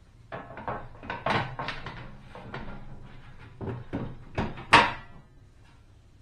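The metal top panel of an RV gas stove is lowered over the burners and seated: a run of metal clatters and knocks, with the loudest sharp clank about five seconds in.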